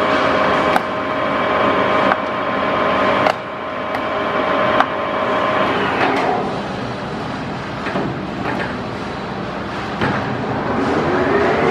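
Harrison M350 lathe running with a steady geared-headstock whine, broken by several sharp clicks as its levers are worked. The whine stops about six seconds in, and near the end the spindle starts again, the whine rising in pitch as it spins up.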